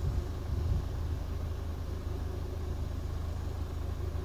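Steady low outdoor rumble with a faint hiss above it, with no distinct event standing out.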